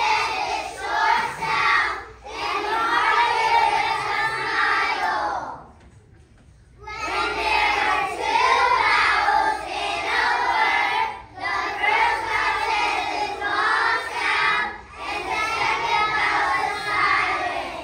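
A group of young kindergarten children singing together in phrases, with a short pause about six seconds in before the singing resumes.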